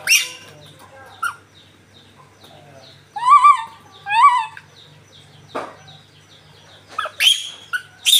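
Young macaque giving short, high-pitched calls: one just after the start, a pair of rising-and-falling coos about three to four seconds in, and quick squeaks from about seven seconds on. A few light clicks fall between the calls.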